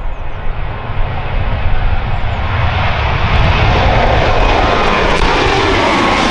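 Boeing 737-800's CFM56-7B turbofans at take-off thrust as the jet lifts off and climbs out overhead: a low rumble that grows louder and brighter over the first three or four seconds, then holds, with a falling tone sweeping down near the end as the aircraft passes.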